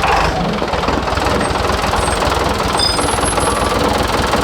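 Tractor engine running hard under load while pulling on a stable wall, its wheels spinning for lack of grip; a steady, dense engine sound throughout.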